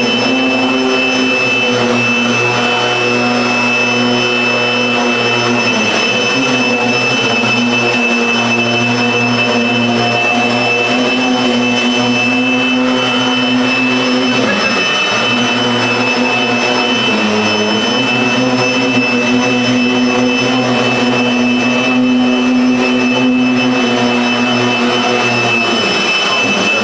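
Electric leaf blower powering a homemade hovercraft, running steadily at full speed: a loud, constant whine over a hum that wavers briefly a couple of times around the middle.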